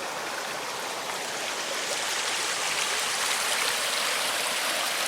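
Creek water running over its stony bed, a steady rushing hiss that gets a little louder about two seconds in.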